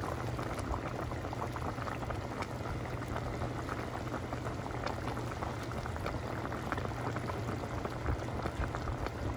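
Beef shank broth at a rolling boil in a pot: a steady bubbling full of small pops, with a low steady hum underneath.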